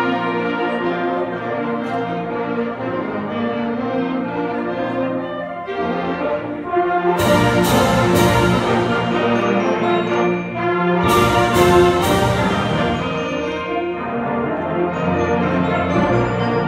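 A student concert band of brass and woodwinds playing sustained full chords. Two groups of three loud accented hits ring out over the chords, about seven and about eleven seconds in, at the loudest point of the passage.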